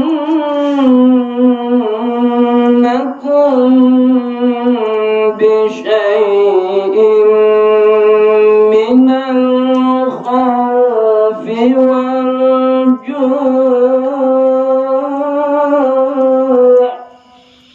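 A male qari reciting the Qur'an (tilawah) in the melodic, ornamented style into a handheld microphone: long held notes with wavering melismas, sung in several long phrases with brief breaths between them, stopping just before the end.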